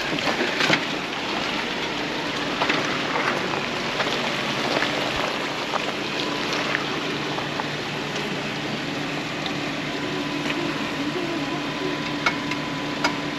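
Jeep creeping along a rough trail, its engine running at low speed under a steady hiss of tyres, with scattered sharp cracks and crunches of rocks and twigs under the wheels.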